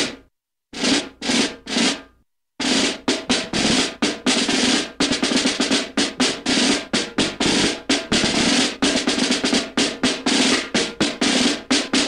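Snare drum roll: a few separate drum hits with silences between them, then from about two and a half seconds in a fast, continuous roll.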